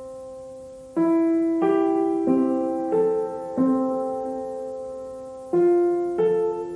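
Background piano music: slow notes and chords struck one after another, each left to ring and fade.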